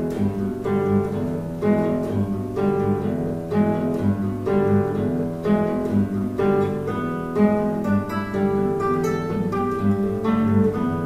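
Acoustic guitar instrumental music, a fast run of plucked and strummed notes.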